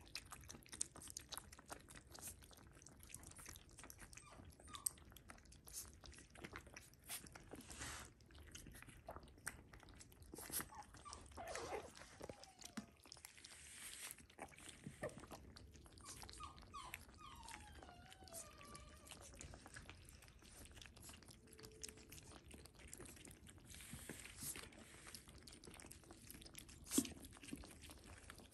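Shiba Inu puppies eating soft mushy food from a steel feeding pan: a quiet, constant run of wet smacks and small clicks. A few brief, high puppy whimpers come partway through.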